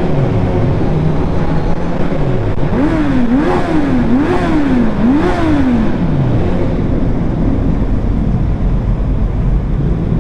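Kawasaki Z900's inline-four engine under way, its pitch falling off at first and then revving up and down in four quick blips around the middle, over constant wind and road noise on the riding microphone.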